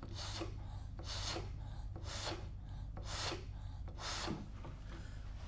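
Rescue breaths blown mouth-to-mouth into a child CPR training manikin: five short rushes of breath about a second apart, over a faint steady low hum.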